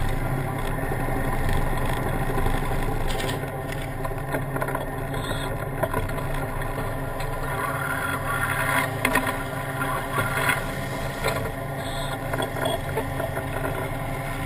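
Tank engine running steadily, heard up close from the vehicle's own turret, with a few short sharp cracks scattered through it.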